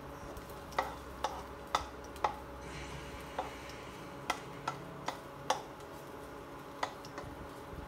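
Plastic spatula stirring chopped garlic in a nonstick pan, its edge clicking and tapping against the pan about ten times at an irregular pace.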